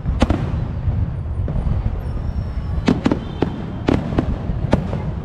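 Aerial fireworks exploding overhead: about six sharp bangs, one near the start and the rest bunched in the second half, over a steady low rumble.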